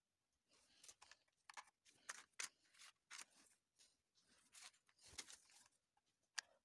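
Faint clicks, taps and scrapes of wooden popsicle sticks being handled and pressed together, with one sharper click near the end.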